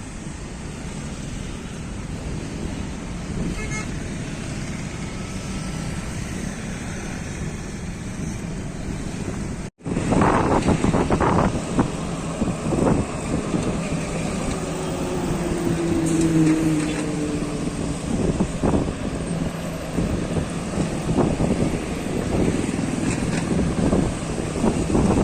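Road traffic: vehicles running and passing on a busy road, with engine noise and occasional short knocks. The sound drops out briefly about ten seconds in and comes back louder and busier, with one vehicle's pitch falling as it passes.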